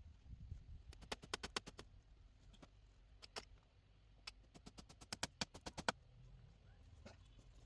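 Sharp knocks or taps in quick runs: about six in a fast burst, a pair a couple of seconds later, then a longer run of about eight to ten.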